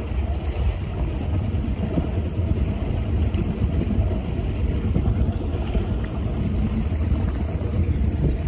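A motorboat under way: a steady low engine and hull drone, with wind buffeting the microphone.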